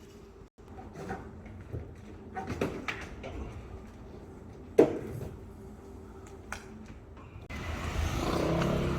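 Scattered knocks and clatter of work, with one sharp knock about five seconds in; near the end the background turns to a louder, steady noise.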